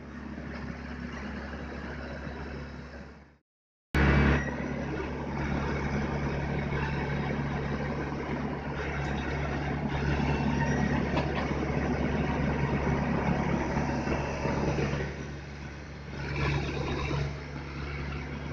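Diesel engine of a dump truck loaded with soil running steadily as the truck pulls away. The sound cuts out completely for about half a second around three and a half seconds in, then returns louder.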